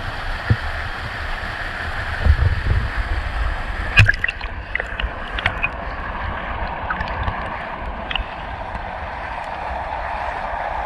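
Creek water running steadily, with an irregular low rumble and a sharp click about four seconds in, followed by a few small ticks.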